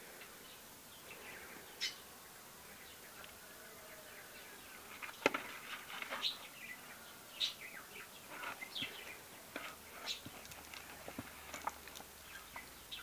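Kitten playing in a plastic basin: irregular scratches and knocks on the plastic, the sharpest about five seconds in, with short high chirps scattered throughout.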